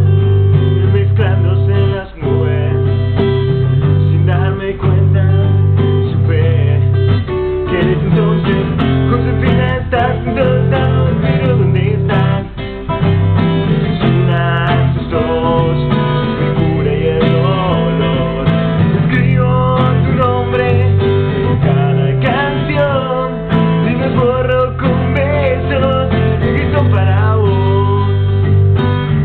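Acoustic guitar strummed in a steady chord pattern, with a man singing over it.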